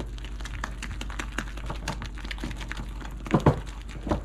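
Spatula beating thick cake batter by hand in a glass mixing bowl: quick, irregular clicks and taps as it strikes and scrapes the glass, with a couple of louder knocks about three and a half seconds in.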